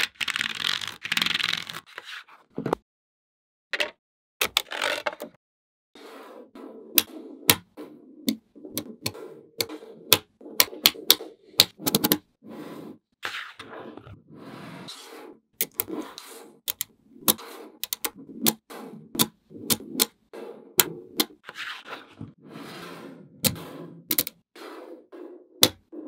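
Small magnetic balls clicking sharply as they snap together, with scraping and rattling as the balls are pushed and slid across a hard surface. The clicks come irregularly, several to a second, with two short pauses in the first few seconds.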